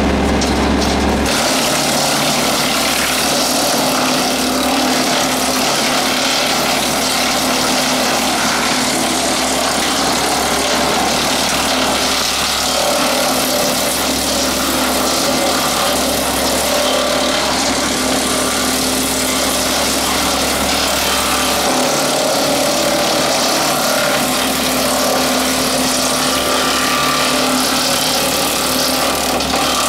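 A WoodMaxx WM-8M 8-inch PTO wood chipper runs steadily, driven off a tractor's PTO, with the tractor engine's hum beneath it. The low hum shifts about a second in.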